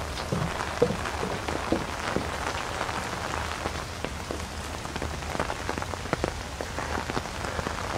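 Easing rain falling steadily, with many individual drops ticking sharply on surfaces close by.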